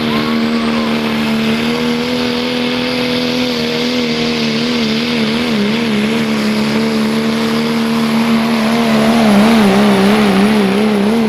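Pro Stock diesel 4x4 pickup, a 1990s Ford F-series, at full throttle, held at high steady revs as it drags a weight-transfer sled. Past the halfway point the engine note wavers quickly up and down, a few times a second, and gets a little louder near the end.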